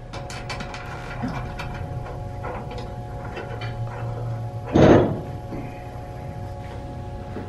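Steel exhaust tubing handled and fitted against a car's underbody: a run of light metallic clicks and knocks, then one louder short scrape about five seconds in. A steady electrical hum runs underneath.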